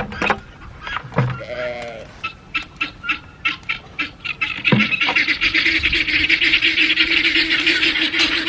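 Farmyard animals calling: a short wavering bleat about two seconds in, then quick, repeated poultry calls that turn into dense, continuous chattering from about five seconds.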